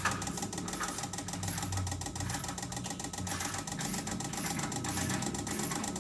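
Fuel injectors from a 1.6 16V Peugeot engine clicking rapidly and evenly as they are pulsed on an injector test bench, over the low hum of the bench's pump, during a flow test.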